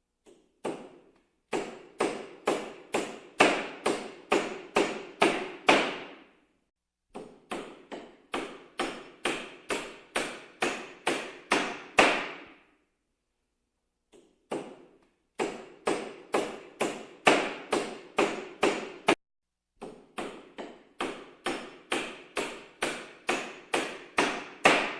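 Hammer blows struck repeatedly at a steady pace of about two to three a second, each a sharp knock with a short ring. They come in runs of several seconds, broken by brief pauses.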